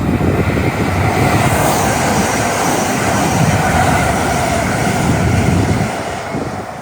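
Train passing through the station: loud rushing wheel and rail noise that builds quickly, holds for about six seconds, then fades away near the end.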